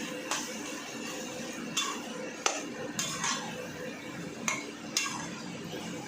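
A metal spoon clinking and scraping against a cooking pan while stirring, with about six sharp clinks at uneven intervals over a steady background.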